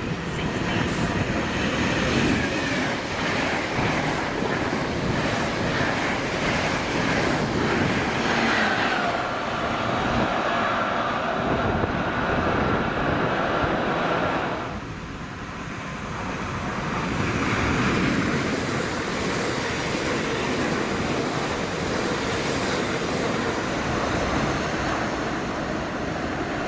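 Electric train running past on the rails: a continuous rumble and clatter of wheels on track, with a steady whine through the middle. The noise dips briefly about halfway through, then swells again.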